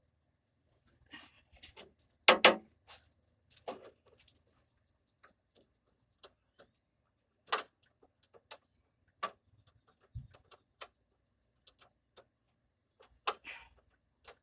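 Irregular metallic clicks and knocks of hand tools and fasteners as the carburetor mounting bolts and nuts are worked loose in a tight spot on a golf cart engine. The loudest is a short cluster of knocks about two seconds in.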